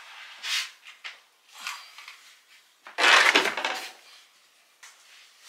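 Rustling and shuffling of clothes being gathered up from a pile of laundry into a basket, in several short bursts, the loudest lasting about a second from about three seconds in.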